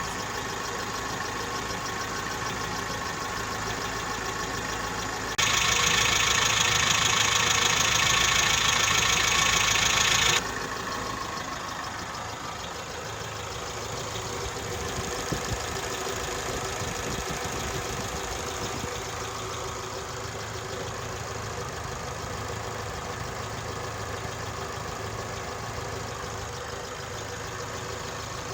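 Suzuki Jimny Sierra engine idling steadily. About five seconds in, a louder stretch with much more high-pitched noise starts and stops abruptly, lasting about five seconds.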